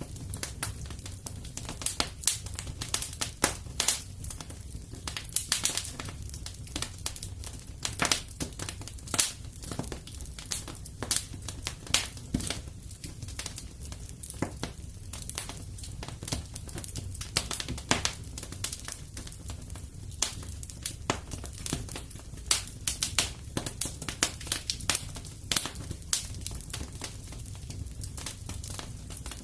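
Fire in a fireplace crackling, with frequent irregular sharp pops over a steady low rumble.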